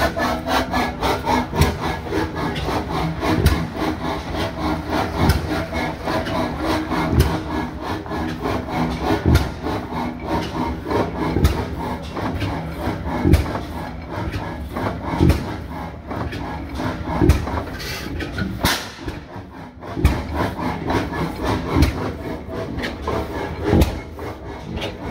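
A 50 hp Fairbanks Morse Type N horizontal stationary gas engine running. Its crank and valve gear clatter steadily, with a heavy knock about every two seconds.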